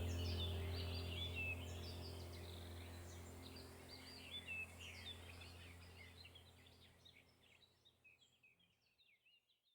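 Many small birds chirping and twittering in quick, overlapping high calls over a steady low hum. The whole sound fades out gradually and is gone just before the end.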